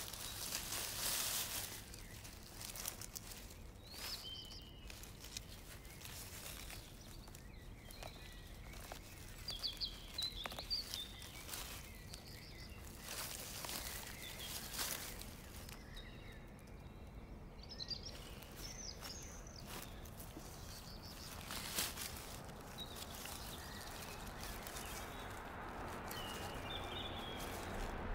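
Dry fallen leaves and forest litter rustling and crackling as a hand digs around and pulls porcini mushrooms from the ground, with short bird chirps at intervals. A soft steady hiss builds near the end.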